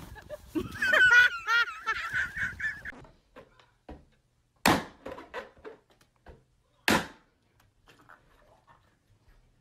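A high-pitched, wavering squeal lasting about two and a half seconds, followed by two sharp bangs of balloons bursting about two seconds apart.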